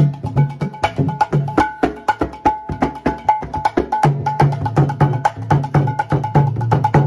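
Gouranga mridanga played with both hands in a quick rhythm: ringing high strokes on the small treble head mixed with deep bass strokes on the large head, the bass strokes coming more often in the second half.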